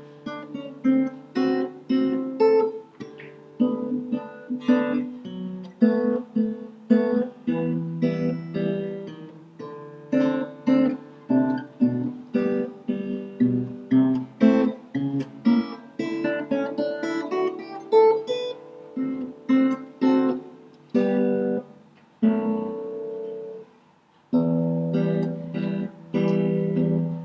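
Solo Fender acoustic guitar played, notes picked one after another over chords. About three-quarters of the way through it fades to a short lull, then picks up again with a firm chord.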